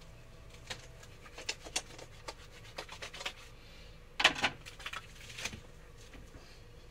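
Fingers and palms rubbing soap lather on the face and between the hands: a string of short wet rubbing strokes, with a louder burst of rubbing about four seconds in.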